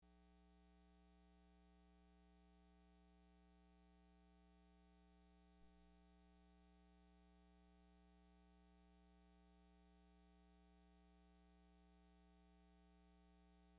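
Near silence: a faint, steady electrical mains hum, with one tiny click about halfway through.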